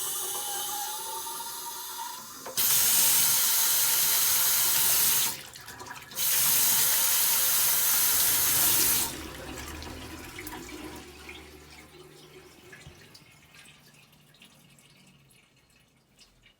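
Daiwa Kasei Sofia FZ500 simple-flush toilet discharging water under high pressure: a whine rising slightly in pitch, then two loud rushes of spraying water of about three seconds each with a short break between, fading away after. The whine is the abnormal noise the fixture makes when flushing at high water pressure.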